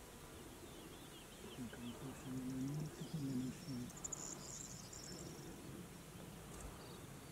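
Faint open-countryside ambience: small birds chirping, with a brief high trill about four seconds in. A few short, low-pitched calls from an unidentified distant source come in the first half.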